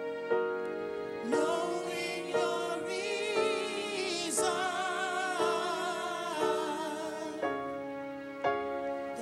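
Opening of a gospel song: sustained keyboard chords struck about once a second, with a solo singing voice with a wide vibrato coming in over them about a second in.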